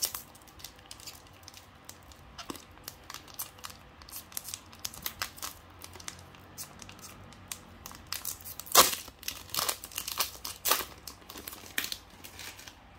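Foil booster-pack wrapper of Pokémon trading cards being torn open and crinkled by hand: a run of irregular sharp crackles and rustles, loudest about nine seconds in.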